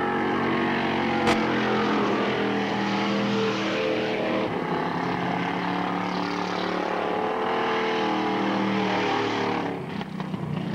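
Several dirt-track stock car engines running hard around the oval, their pitches rising and falling as the cars come through the turn, dipping briefly near the end. A single sharp click about a second in.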